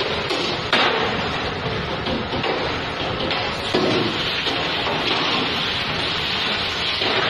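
Pre-rinse spray hose hissing steadily as water hits stainless-steel pans, with three sharp metal clanks as the pans are handled.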